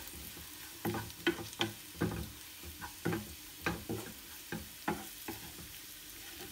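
A wooden spatula stirring fried onions and spices in a nonstick frying pan: repeated short taps and scrapes against the pan, about two a second, over a faint sizzle of hot oil.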